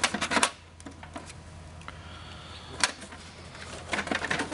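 Hard plastic clicks from the tray lock slider on an HP LaserJet 4250's 500-sheet paper tray being slid by hand: a quick run of clicks at the start, one sharp click a little before the three-second mark, and another run of clicks near the end.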